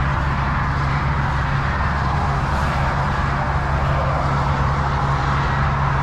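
Steady idle of a Volvo semi truck's diesel engine heard from inside the cab, with a constant rush of highway traffic going past.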